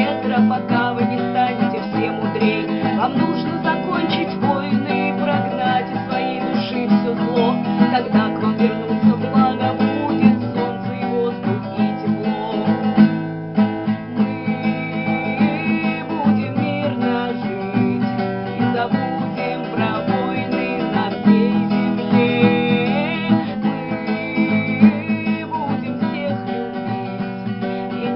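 Acoustic guitar music playing steadily, with a brief dip about halfway through.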